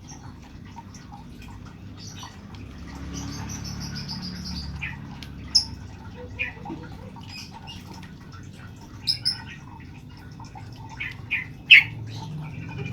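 Yellow-vented bulbul (trucukan) giving short sharp chirps, spaced out at first and several in quick succession near the end, with a brief high chattering trill a few seconds in.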